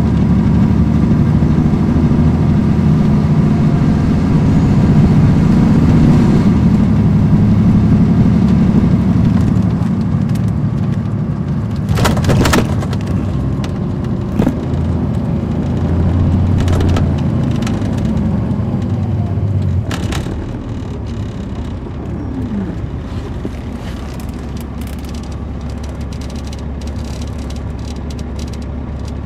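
2006 MCI D4500CL coach's Caterpillar C13 diesel engine heard from inside the bus cabin, running loud and steady at first, then easing off and dropping to a quieter steady hum about twenty seconds in. A few sharp knocks come through in the middle.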